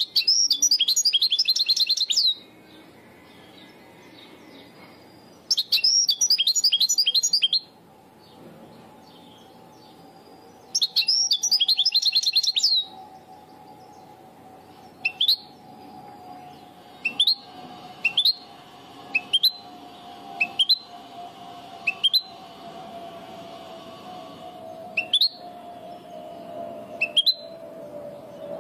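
European goldfinch singing in the Levantine (Shami) style: three bursts of rapid, high twittering song, each about two seconds long and a few seconds apart, then single short rising call notes every second or two.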